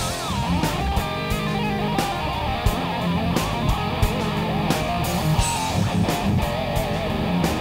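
Heavy instrumental tune played on electric guitar, riffing and strumming, with sharp hits keeping a steady beat.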